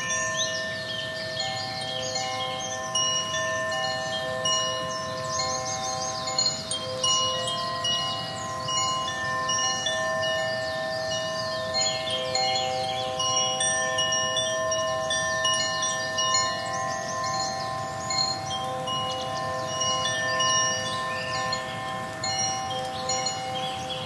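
Relaxation music: long held tones with quick cascading wind-chime runs sparkling over them.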